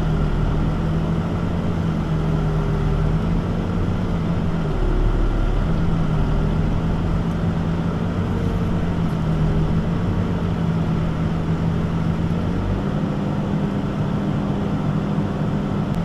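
Backhoe's diesel engine running steadily, heard from inside the cab while the boom and bucket are worked. Its pitch dips briefly about five seconds in and shifts again near the end.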